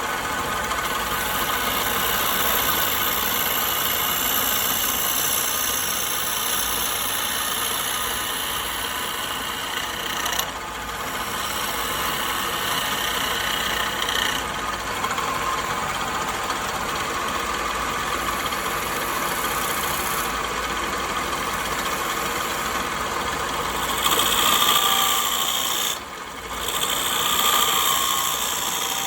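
An electric power tool running steadily on wood, its high-pitched whine shifting now and then as the work is pressed against it, with short dips about 10 and 26 seconds in.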